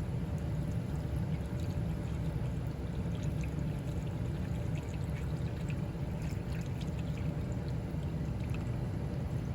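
Water being poured into an air conditioner's condensate drain line to flush it after a clog, a steady pour over a low, even rumble.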